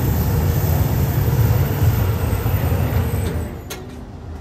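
Low rumble of a passing vehicle that drops away about three seconds in, followed by a single sharp click.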